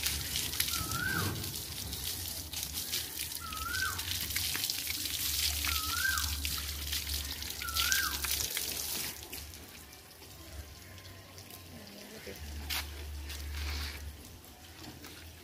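Water from a garden hose splashing over a wet dog's coat and onto concrete, steady for the first nine seconds, then dropping to a quieter trickle.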